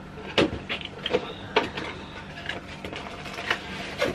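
A cardboard figure box being opened and its cardboard insert pulled out: rustling and scraping of card, with several sharp knocks, the loudest about half a second in.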